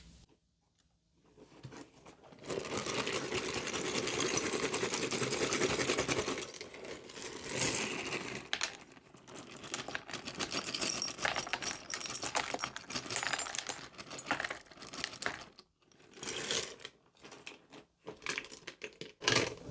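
A bone-casting set of small bones, shells, seeds and stones rattling together: a dense, continuous clicking for about four seconds from two seconds in, then shorter bursts of clattering and clicking.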